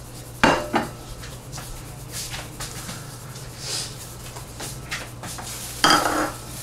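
Meat tenderizer shaken from a shaker onto raw pork ribs in a pan: faint scattered patter and rustle, with two sharper knocks about half a second in, over a steady low hum. A short, louder sound comes near the end.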